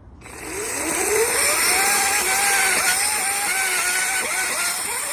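Two-stroke chainsaw revving up and cutting, its pitch wavering as the chain bogs under load in the wood.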